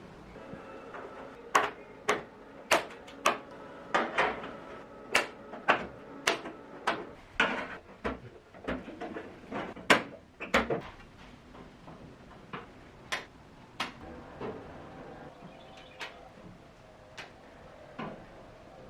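A series of sharp knocks or taps, about two a second, some with a short ringing after them; after about eleven seconds they come more sparsely and softer.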